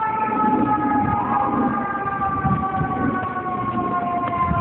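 FDNY fire engine's siren wailing, two tones gliding slowly downward, the higher one jumping back up in pitch about a second in, over a low traffic rumble.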